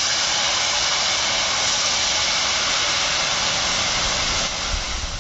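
Palm-fruit malpua batter sizzling in hot oil as it is ladled into a kadai to fry: a loud, steady hiss that eases off a little near the end.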